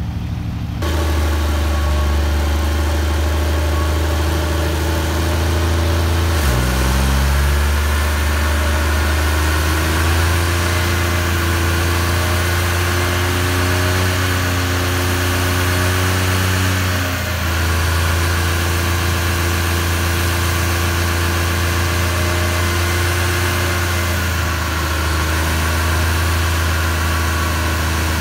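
Cummins diesel pickup running on a chassis dyno: steady at first, then about six seconds in the engine revs up, its note rising over a few seconds. It holds high for about seven seconds while the truck puts out heavy smoke, then drops back to a lower, steady speed.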